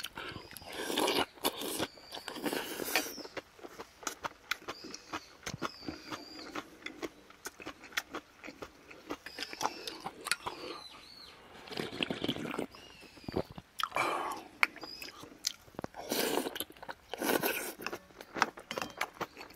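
Close-miked eating of rice soup and aged kimchi: chewing and crunching, with frequent sharp clinks of a metal spoon against a stainless steel bowl.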